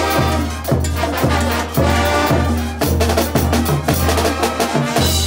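Bolivian brass band playing at full volume: trumpets and trombones over a tuba bass line, with bass drum, snare and cymbals keeping a steady beat.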